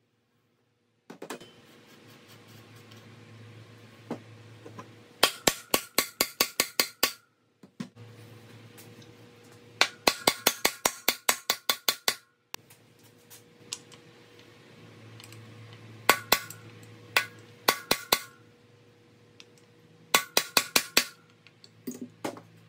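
Bursts of rapid metal-on-metal hammer strikes, about five a second, each with a ringing clink, four runs of roughly ten blows, typical of driving out motorcycle swingarm bearings.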